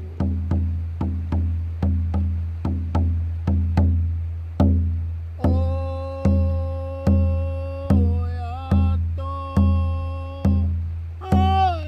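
A deep hand drum beaten in a steady rhythm, quickly at about three beats a second, then slowing to a little over one beat a second about four seconds in, with the slower beats louder. From about halfway a long held tone sounds over the drum and slides in pitch twice.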